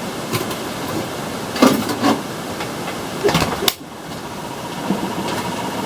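Handling noise of grocery packages being picked up and set down: a rustling bed with several sharp knocks, and a sudden brief drop in level a little under four seconds in.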